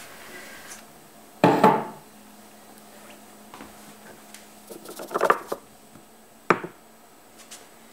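Handling knocks from a cut-glass tumbler and hands on a wooden coffee table: a heavy knock about a second and a half in, a short clatter about five seconds in, and a sharp knock near the end.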